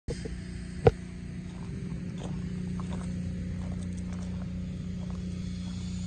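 Chevrolet Silverado pickup's engine idling with a steady low hum, a truck listed as having a bad motor. A single sharp knock about a second in.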